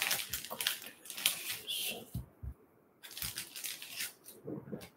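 Trading cards and foil-wrapped packs being handled on a tabletop: bursts of crinkly rustling, with a few soft knocks as cards are set down in their stands.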